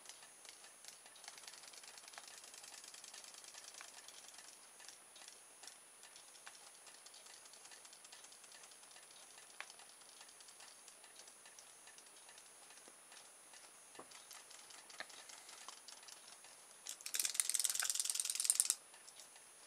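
RoboFish robot toy fish's small battery motor and tail mechanism ticking rapidly as it swims in a bowl of water. Near the end it turns suddenly much louder for about two seconds as the fish is lifted out of the water.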